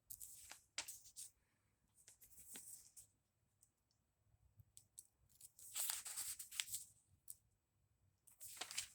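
Pages of a Bible being turned by hand: several soft paper rustles, a longer run of them about two thirds of the way in, as the reader leafs through to find a passage.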